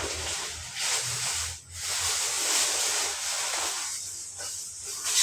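A steady hiss, broken by a short drop about one and a half seconds in.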